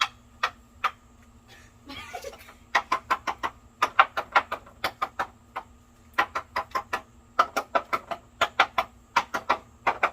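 Quick runs of sharp knocks on wooden boards, several strikes a second in bursts with short pauses, tapped out like a drum beat. The pieces give different pitches.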